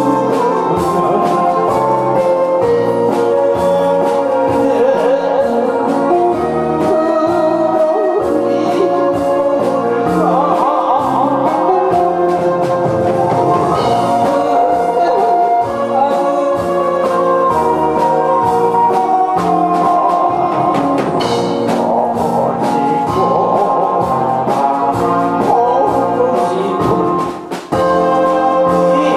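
A man singing into a handheld microphone over a loud instrumental backing, his voice with a wavering vibrato on held notes. The music dips briefly near the end, then carries on.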